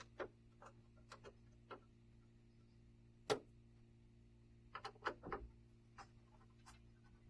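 Scattered sharp clicks and ticks of a Phillips screwdriver working the screws out of a laser printer's access panel, the loudest about three seconds in and a quick cluster near five seconds, over a faint steady hum.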